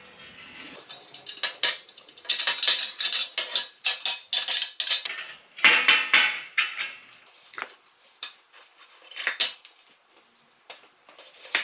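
Steel clinking and rattling as a round-bar axle is worked through the drilled holes of an angle-iron cart frame and lawnmower wheels are fitted onto it. A dense run of quick metal knocks and clinks lasts several seconds, then thins to a few separate clinks, with a sharp one at the very end.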